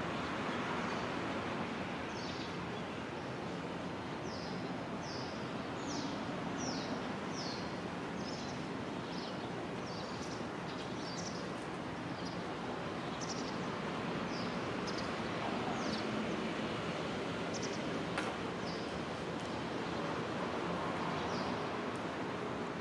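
Small bird chirping: short, high notes that fall in pitch, repeated about once or twice a second, over a steady rushing background noise.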